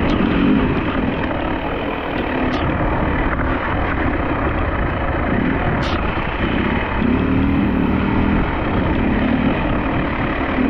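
Dirt bike engine running, its pitch coming and going, under a heavy rush of wind noise on the microphone.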